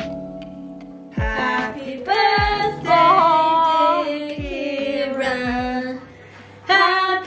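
Voices singing with held, wavering notes, starting about a second in and pausing briefly near the end, over background music with deep falling notes.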